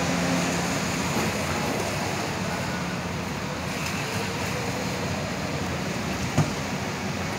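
Steady vehicle noise: engines running with tyre hiss on wet pavement. There is a single short knock a little over six seconds in.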